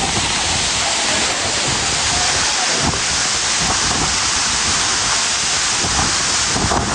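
Waterfall pouring close by: a loud, steady rush of falling water and spray.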